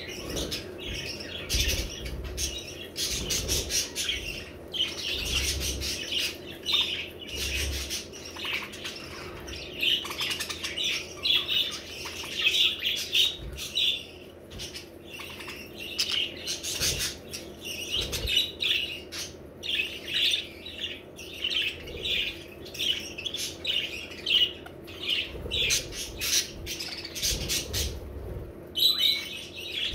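Several budgerigars chattering, a dense, continuous run of quick warbling chirps.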